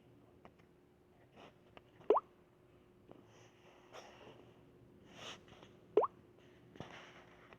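A woman's stomach growling: two short, loud gurgles that each rise quickly in pitch, about four seconds apart, with fainter soft hissing gurgles between them.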